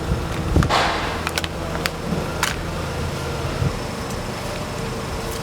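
A car engine running as the car drives over an airsoft M4 rifle on the ground, with a loud crunch about half a second in and a few sharp clicks over the next two seconds. The engine hum fades out a little after halfway.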